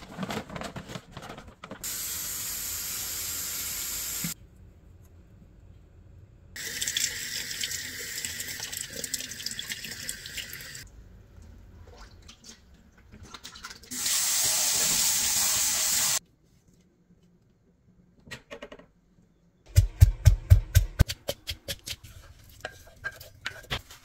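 Tap water running into a kitchen sink as mushrooms are rinsed in a bowl, in three separate stretches of a few seconds each that start and stop abruptly. Near the end, a quick run of loud knocks is followed by lighter clicks.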